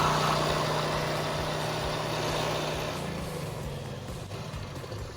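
Engine idling with a steady low hum under a rushing noise, which fades gradually over the last couple of seconds.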